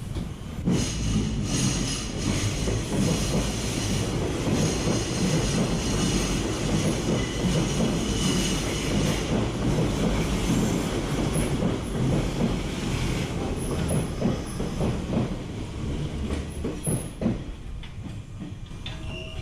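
Hanshin Railway electric train moving along the platform, wheels clattering over rail joints with some high wheel squeal. The noise comes in suddenly about half a second in and fades away near the end.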